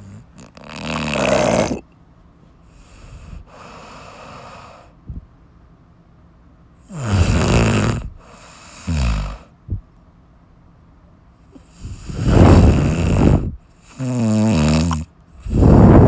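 A person snoring loudly: rasping snores of one to two seconds each, several of them in quick pairs, with softer breaths and short pauses between.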